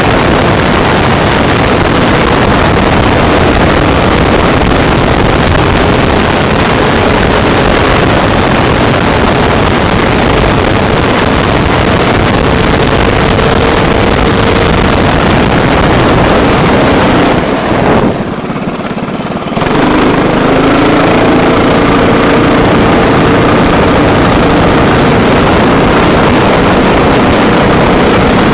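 Four-stroke racing kart engine running under throttle, heard close up from a microphone on the kart with heavy wind noise. About two-thirds of the way through, the sound drops off sharply for around two seconds, then comes back.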